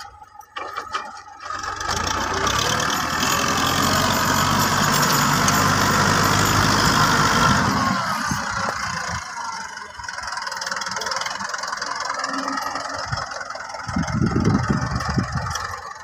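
TAFE 5900 DI tractor's diesel engine running hard while its rear rotary tiller churns the soil. It comes in about a second and a half in, runs loudest for several seconds, drops lower, then surges again near the end.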